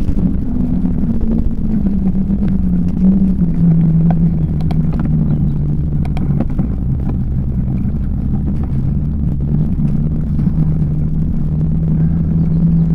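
Bicycle rolling along a tarmac path: a steady hum from the tyres on the road, a little higher at first and then settling lower, over a low rumble.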